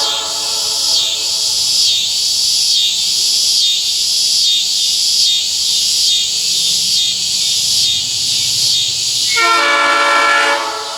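Locomotive air horn: one blast cuts off right at the start, and a second blast of a little over a second sounds near the end. A loud high hiss pulsing about one and a half times a second lies under both.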